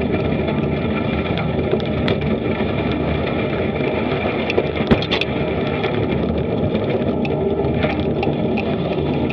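Bicycle rolling along a gravel trail, heard from an action camera mounted on the bike: a steady rolling noise with scattered small clicks and rattles, and one sharper knock about five seconds in.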